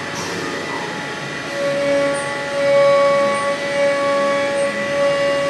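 CNC milling machine spindle and end mill cutting a plastic plate: a steady hiss with a whine. About a second and a half in, a strong steady tone sets in and swells and fades as the cutter works through the plastic.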